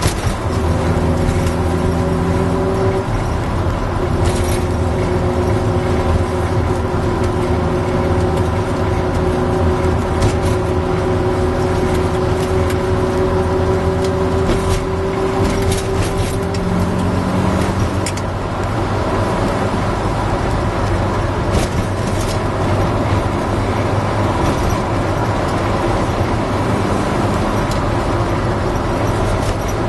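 VW T2 camper's air-cooled flat-four engine running under way through a JK Stainless single quiet pack exhaust, heard from inside the cabin. The engine note holds steady for long stretches, changing pitch a few seconds in and again just past halfway, with a few brief knocks or rattles.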